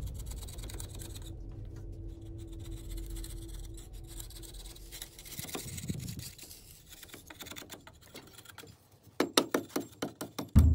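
Hand tools scraping and chipping at a block as a circular design is carved into it. Near the end comes a quick run of sharp knocks, about eight in a second and a half, as a hatchet-like blade is struck against the surface.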